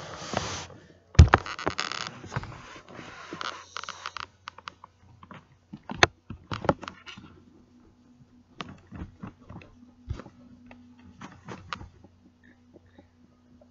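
Phone handling noise close to the microphone: a loud knock about a second in, then scattered scraping, rustling and clicks as a hand moves over a dog's coat and the sofa fabric. A faint steady hum comes in about halfway through.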